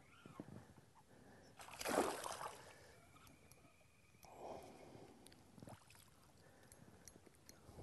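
Faint splashing of a small hooked bass thrashing at the surface beside the boat: one sharper splash about two seconds in and a softer one a couple of seconds later.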